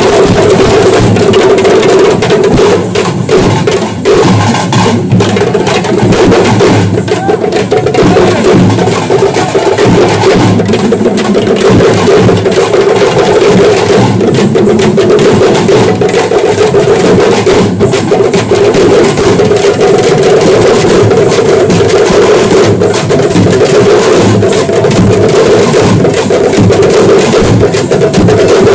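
Loud, continuous folk drumming: dappu frame drums and a double-headed barrel drum beaten with sticks in a steady driving rhythm.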